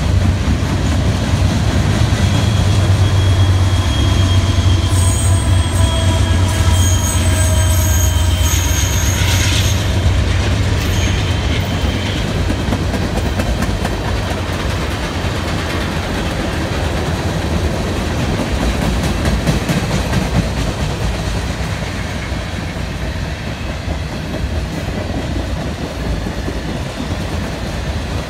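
Freight train of tank cars and covered hoppers rolling past: a steady low rumble and clacking of steel wheels on the rails. A high, steady metal squeal from the wheels runs from about five to eleven seconds in.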